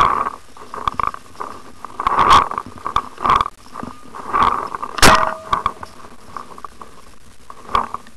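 Paintball marker firing irregular single shots a second or two apart, the sharpest and loudest about five seconds in, with scuffing through dry leaf litter and twigs between them.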